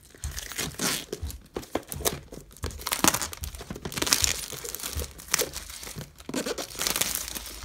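Clear plastic shrink-wrap being picked at, torn and peeled off a cardboard box, with irregular crinkling and crackling and many sharp little clicks throughout.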